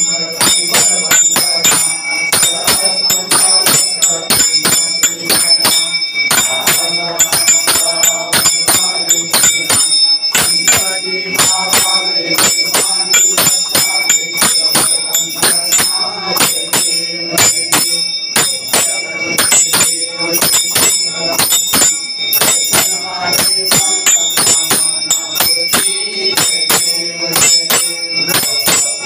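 A temple bell rung rapidly and without pause during an aarti, its ringing held steady throughout, with devotees singing the aarti beneath it.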